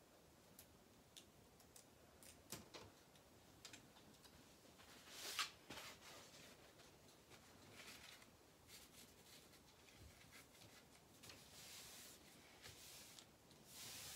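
Near silence with faint rustling, light scraping and small clicks of a picture frame being handled and pressed against a wall, with one louder scrape about five seconds in.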